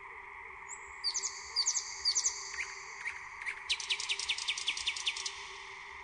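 Songbird singing: a few short, high whistled phrases with quick sweeps, then a fast run of about a dozen downward-sweeping notes, roughly eight a second, in the second half. A faint steady hiss and hum lie underneath.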